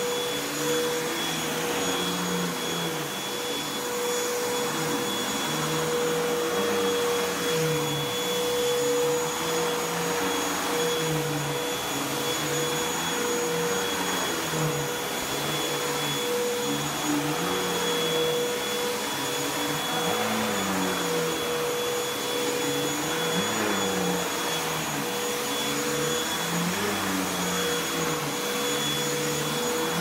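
Upright bagless vacuum cleaner running on carpet, a steady motor whine over the rush of suction, with a lower hum that rises and falls in pitch as it is worked back and forth.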